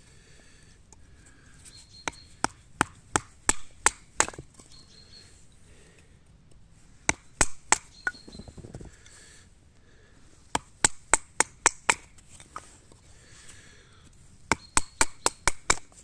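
A blade chopping against wood, in four quick bursts of sharp strikes, about four or five strikes a second.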